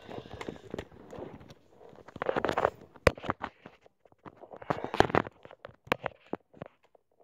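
Handling noise from fingers and a plastic action figure knocking and rubbing right against the microphone: irregular clicks and short rustling bursts.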